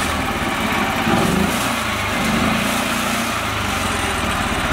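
Small engine of a homemade mini tractor running under load as it churns through deep mud, the note rising and falling a little near the middle.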